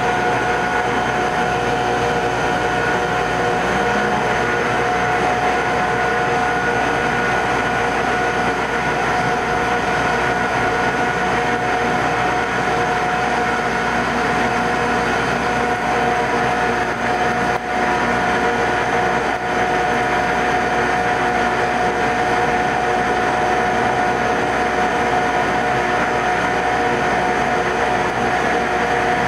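Metal-cutting machine tool running steadily while machining a spherical seat in a locomotive throttle part, a continuous mechanical noise with a steady whine.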